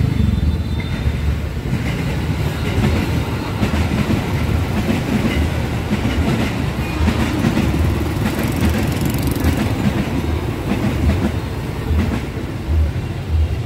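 A passing train, a continuous low rumble with a steady run of clattering knocks.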